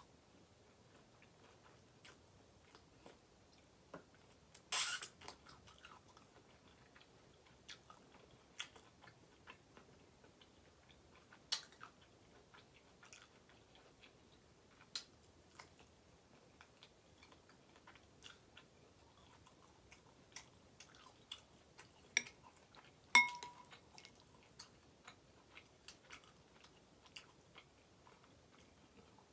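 Close-up chewing and wet mouth sounds of someone eating ramen noodles, with many small scattered clicks. A louder, noisy burst comes about five seconds in, and a fork clinks against the glass bowl with a short ring about 23 seconds in.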